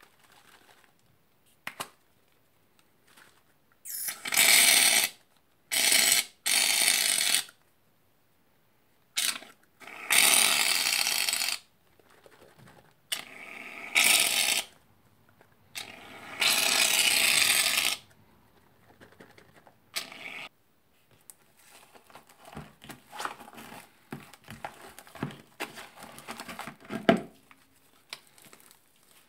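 Aerosol shaving cream can spraying foam onto slime in a series of loud hissing bursts, about six of them, each up to two seconds long. From about twenty seconds in, quieter wet squishing and crackling as hands knead the slime and foam together.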